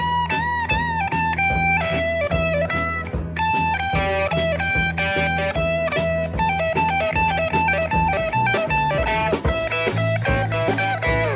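Live blues-rock band playing an instrumental break: guitars, bass and drum kit keep a steady beat under a lead line of held, bending notes.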